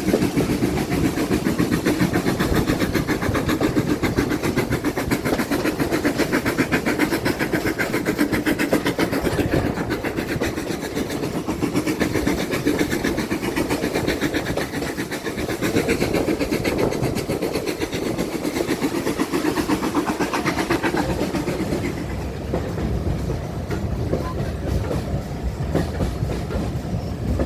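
A train running on the rails, with a steady rapid clatter of wheels over the track, a little quieter for the last few seconds.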